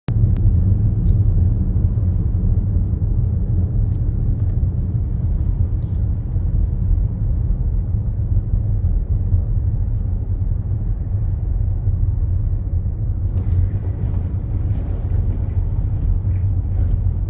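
Loud, steady low rumble of road and wind noise, picked up from a moving vehicle. Some higher hiss joins in near the end.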